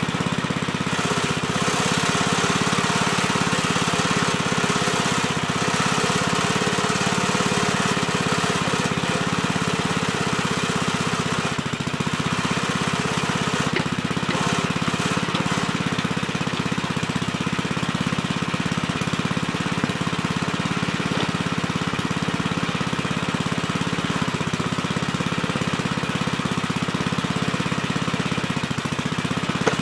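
Gravely Terramite compact backhoe's engine running steadily, with a few brief clattering moments over it.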